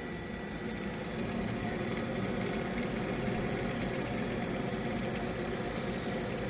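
Refrigerator condenser fan motor running steadily with its blade wobbling on the shaft, making a little bit of a noise; the wobble comes from the blade sitting too far out from the motor's base.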